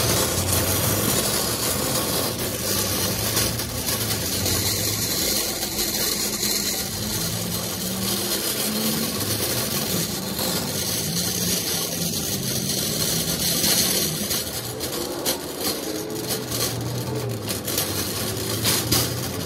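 Metal shopping cart rolling over asphalt: a steady rumbling of the hard plastic wheels on the rough pavement, with the wire basket rattling, the rattles sharper near the end.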